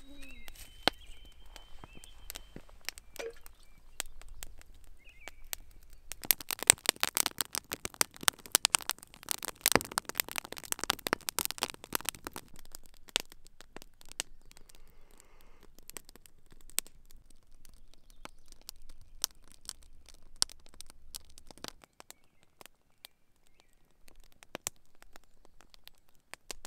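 Wood campfire crackling and popping, in a dense run of loud pops for several seconds in the middle, then scattered single snaps.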